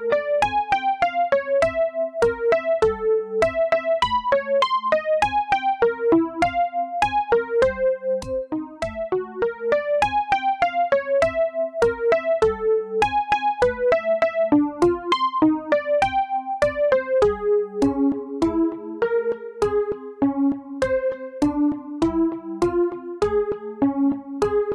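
Background music: a gentle instrumental melody of short, evenly spaced notes, about three a second, over a low repeating bass line.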